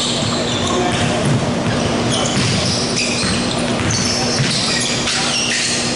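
Basketball in play on a hardwood gym floor: the ball bouncing and sneakers squeaking in short high chirps, echoing in the large hall. A steady low hum runs underneath.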